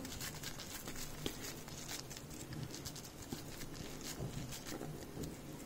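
Faint soft pats and small scattered clicks of wet hands pressing and shaping a water-dipped bread roll with potato filling.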